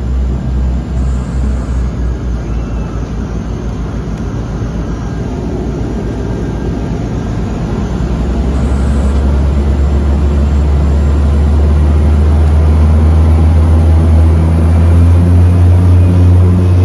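Turboprop airliner's engine and propeller heard from inside the cabin on the takeoff roll: a low throbbing beat that quickens and merges into a steady drone about halfway through, growing louder as power comes up.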